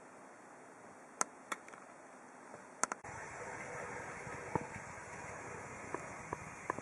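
Faint running hum of an H0 model tram's small electric motor with light wheel clicks on the track, starting about halfway through. It is preceded by quiet room tone with two sharp clicks.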